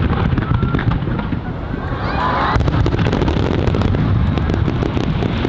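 Fireworks bursting over the sea: continuous overlapping booms with dense crackling, echoing around a bay ringed by hills.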